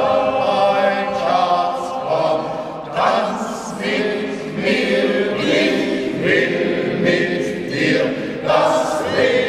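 Men's choir singing a cappella, several voices holding chords together.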